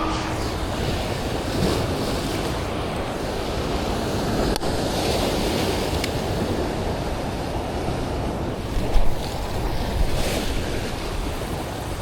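Ocean surf at an inlet washing steadily, with wind gusting on the microphone.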